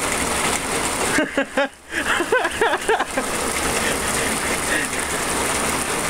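Heavy rain pouring down steadily onto pavement, with a few short, indistinct vocal sounds between about one and three seconds in.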